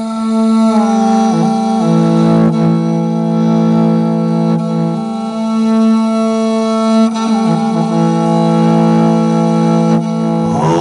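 Morin khuur, the Mongolian horsehead fiddle, bowed in long sustained notes over a steady low drone, with the melody shifting pitch a few times.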